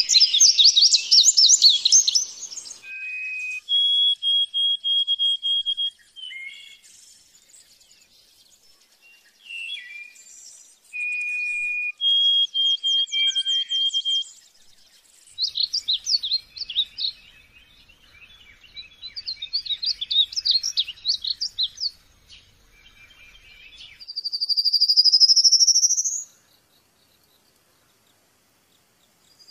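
Bird song: a series of separate high phrases with short pauses between them. The phrases mix rapid trills, clear whistles held on one pitch, and a rising slurred whistle near the end.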